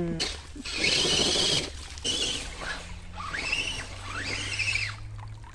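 Electric motor of a radio-controlled off-road crawler truck whining in short throttle bursts as it drives through a shallow creek, each whine rising in pitch and falling away, with water splashing in the first second and a half.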